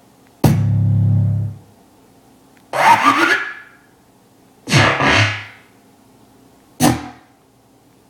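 Four short music samples from a sound pack, previewed one after another in the iMaschine app on an iOS device and heard through its small speaker. Each is cut off after a second or less, about every two seconds, the first with a deep low tone.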